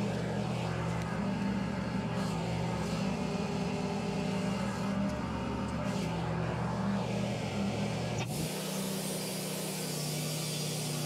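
Portable band sawmill's engine running steadily between cuts. About eight seconds in its sound changes abruptly: the low rumble drops away and a brighter hiss comes up.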